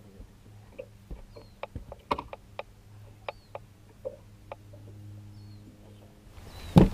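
Scattered sharp clicks and knocks of handling on a small fishing boat over a steady low hum, with a loud thump near the end.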